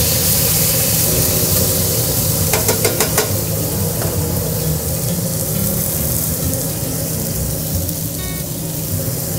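Flank steak searing in olive oil in a hot pan: a steady sizzle, with a quick run of clicks about three seconds in.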